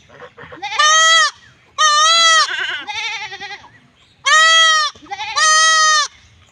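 A young goat kid bleating repeatedly: four loud, high-pitched bleats of about half a second each, with a quieter, shaky bleat after the second.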